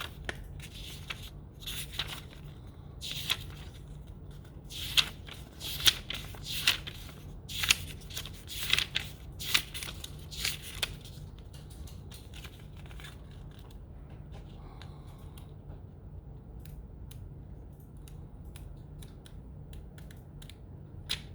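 Paper rustling and crinkling as the printed manual and packaging inserts are handled, in a string of short bursts for the first ten seconds or so, then only faint handling clicks. A steady low hum runs underneath.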